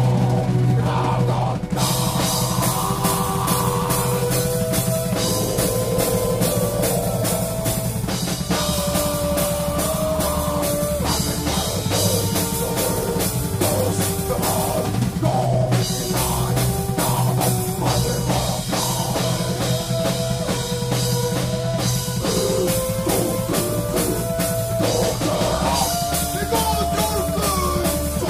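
Live dark folk-metal band playing: a steady, driving drum kit under a strummed acoustic guitar, with a man and a woman singing at the microphones.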